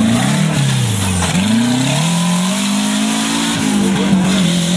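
Off-road racing 4x4's engine revving hard as it climbs a dirt section and accelerates away. Its pitch dips about a second in, then rises again and drops back near the end, over a steady hiss.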